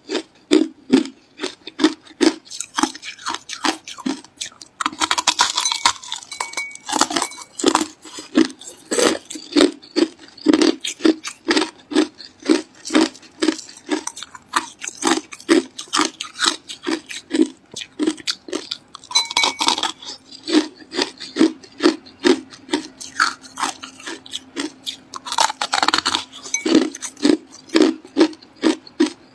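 Close-up crunching of crushed ice being chewed, a steady run of crisp crunches at about two a second, with a few brief hissy stretches.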